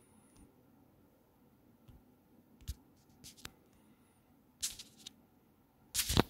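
A few short scratchy taps and rustles at uneven intervals over faint room hiss, the loudest a brief cluster near the end.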